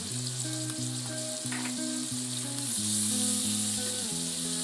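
Chopped onions and ground spices sizzling in hot oil in a wok, stirred with a spatula near the end. Background music with held low notes plays underneath.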